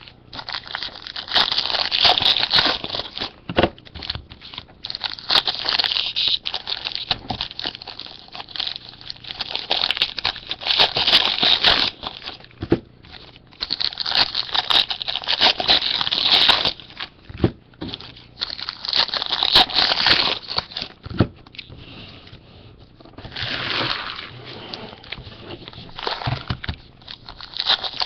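Trading-card packs being opened by hand: wrappers crinkling and tearing in bursts every few seconds, with clicks of cards and packaging being handled in between.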